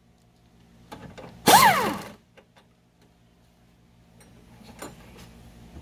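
A short burst from an air impact wrench on a 10 mm bolt of the upper radiator support brace, about a second and a half in: a brief whine that rises and then falls away, with an airy hiss. Faint clicks and light metal tapping come before and after it.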